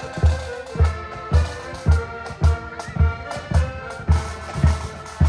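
Marching accordion band playing a tune: accordions sounding the melody and chords, with a bass drum beating the march steadily, about two beats a second.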